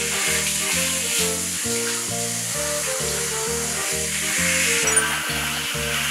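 Water spraying from a handheld shower head onto a wet puppy, a steady hiss, over background music of short, evenly spaced notes, about three a second.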